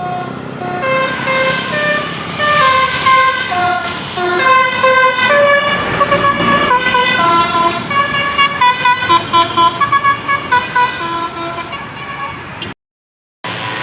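Tour bus's Basuri telolet horn, a set of electric trumpet horns, playing a tune of bright notes that hop up and down, with a run of short, quick blasts in the second half. It cuts off abruptly near the end.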